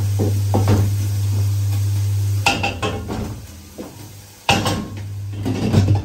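A wooden spoon stirring and scraping in a metal cooking pot, with sharp knocks against the pot about two and a half and four and a half seconds in. A glass lid is set back on the pot near the end. A steady low hum runs under the first half.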